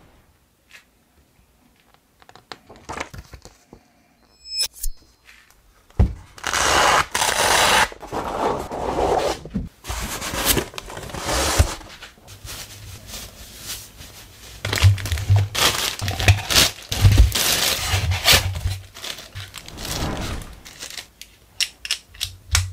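Packaging and toy parts being handled during an unboxing: irregular tearing, crinkling and scraping of packing material, with sharp plastic clicks and knocks. It is nearly quiet for the first few seconds apart from a few clicks and a short ringing ping.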